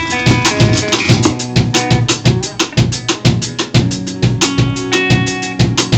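Live band playing with a drum kit keeping a fast, steady beat under sustained pitched instrument notes.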